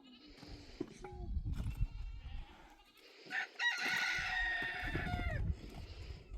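A rooster crowing once: one long call of about two seconds, starting about three and a half seconds in and dropping at the end, over a low rumble.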